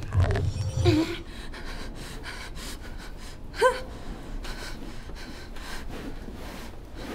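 A frightened woman's gasps and breathing, with one sharp voiced gasp rising in pitch about three and a half seconds in. A low rumble underneath stops about a second in.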